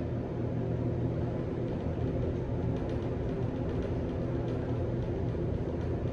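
Hotel elevator travelling, with a steady low hum and rumble from the moving cab.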